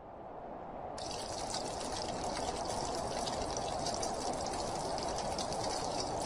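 Steady rushing, pouring noise that swells over the first second or so and then holds.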